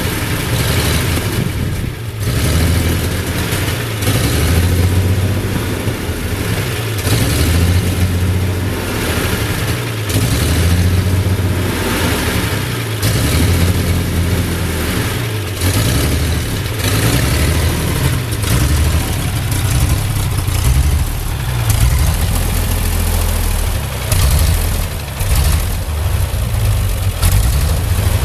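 Ford 8N tractor's flathead engine running under way, its note rising and falling repeatedly as the load and throttle change.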